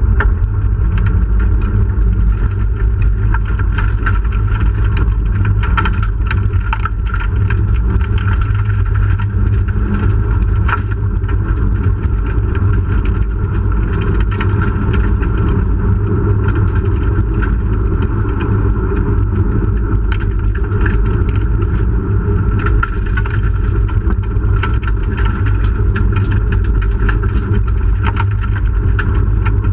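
1997 Hyundai Excel SOHC rally car's four-cylinder engine running steadily under load, heard from inside the stripped cabin, with frequent sharp clicks of gravel striking the underbody.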